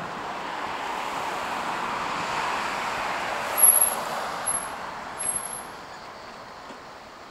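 A car passing on the road, its tyre and engine noise swelling to a peak about two to three seconds in and then fading away. A few short high-pitched squeaks come about halfway through.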